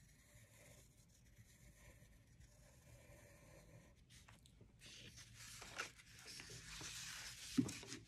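Pencil drawing: faint at first, then scratchy strokes from about halfway in, with a soft thump near the end.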